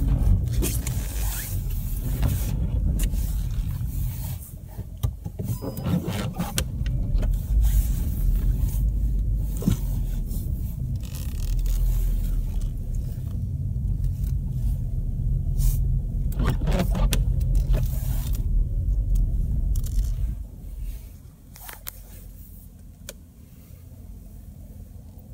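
A car accelerating hard through deep snow on studded winter tyres (Kumho WinterCraft SUV Ice WS31), engine and tyres loud under load, with sharp scrapes and knocks of snow against the car. About twenty seconds in, the driving noise drops away sharply as the car slows.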